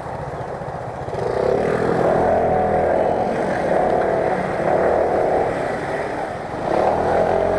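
Motor scooter engine running while riding, picking up revs about a second in and again near the end.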